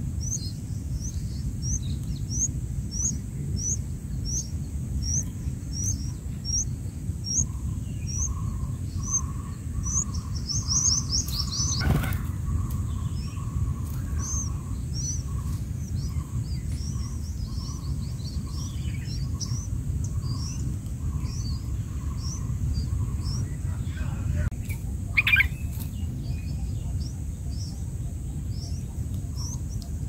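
Bulbul nestlings' begging calls: short high chirps repeated about twice a second, thinning out after about twelve seconds, with a louder call about 25 seconds in. A single sharp knock near the middle, over a steady low rumble.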